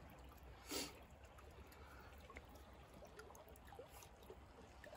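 Near silence: faint running water of a creek, with one brief soft noise just under a second in.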